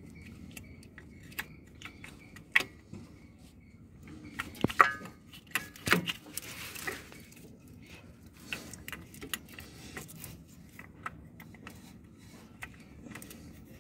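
Scattered clicks, taps and small metal clinks of hands handling wiring, clips and metal parts in an engine bay, the loudest clink about five seconds in.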